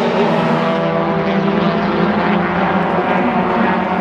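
1600-class race car's engine running at high revs, a steady drone.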